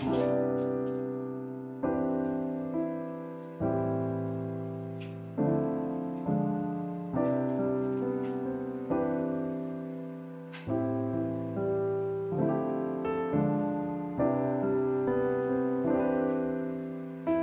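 Solo piano background music: chords struck every second or two and left to fade.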